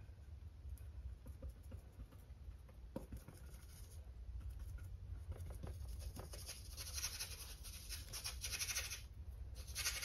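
Faint scratchy strokes of a flat paintbrush working acrylic paint on a canvas board, many short brushing and dabbing strokes, thickening into a denser scrubbing from about five to nine seconds in.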